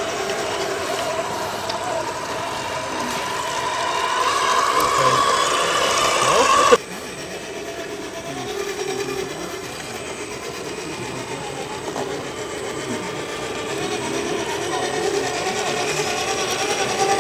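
Whine of radio-controlled crawler electric motors, rising in pitch for a couple of seconds before cutting off abruptly, then a quieter, steady whine.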